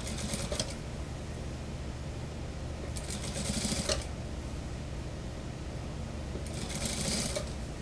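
Industrial lockstitch sewing machine stitching in three short bursts of about a second each, with pauses between, over a steady low hum, as a suit sleeve is eased into the armhole.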